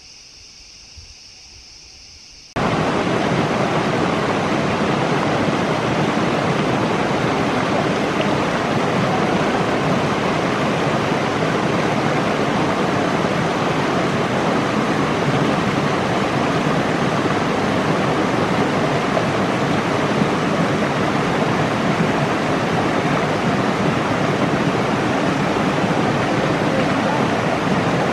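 A steady high-pitched insect drone gives way suddenly, about two and a half seconds in, to the loud, even rush of a small stream cascading over boulders, which carries on unchanged.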